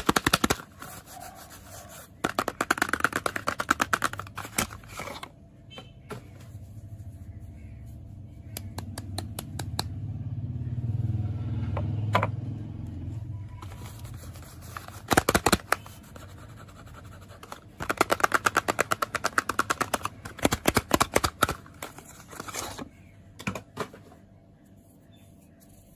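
Fingernails tapping rapidly on soap packaging in several bursts of quick clicks, with a low rubbing or scraping of the packaging that swells and fades midway.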